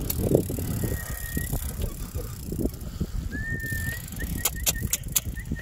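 Bicycle being ridden: steady wind and tyre rumble, with a thin high squeal that comes and goes and a few sharp clicks in the second half.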